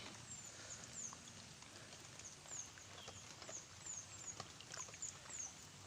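A run of short, high-pitched chirps from a small animal, each falling in pitch, about two a second, over a quiet outdoor background with a few faint ticks.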